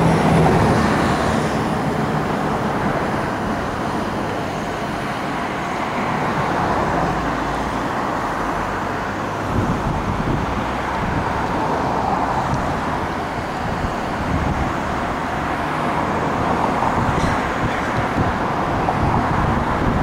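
Steady, even rumble of distant vehicles, with no single event standing out.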